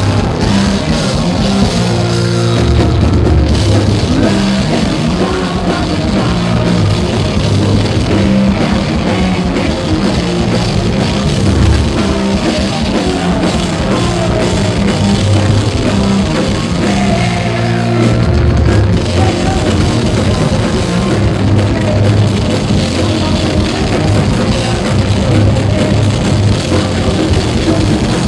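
Live metal band playing loud throughout, drum kit pounding under a vocalist singing into the microphone, in a poor-quality recording.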